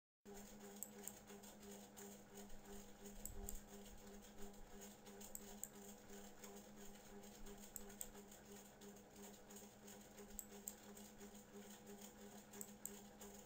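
Near silence: a faint steady low hum with scattered faint ticks.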